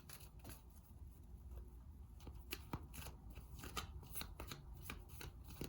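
Tarot cards being shuffled and handled: faint, irregular card flicks and taps, a few every second.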